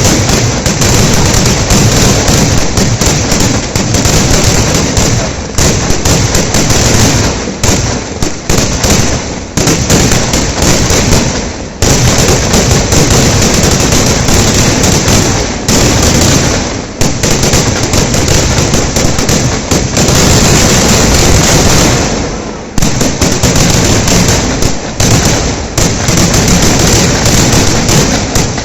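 Kerala vedikettu fireworks barrage: a dense, continuous run of firecracker and aerial shell explosions, very loud, the bangs so close together they merge into one crackling roar. There are only two brief lulls, about halfway through and about three-quarters through.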